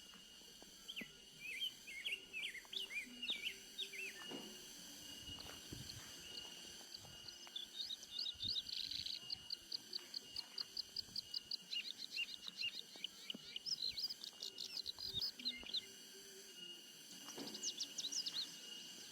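Small bird chirping: a loose burst of chirps, then a long fast run of repeated chirps at about four a second, then another short burst near the end. A steady faint high tone runs underneath.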